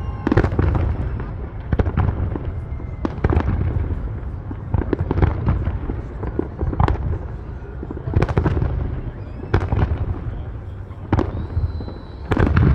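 Fireworks display: aerial shells bursting in a dense, irregular series of bangs over a constant low rumble, with a thin high whistle near the end.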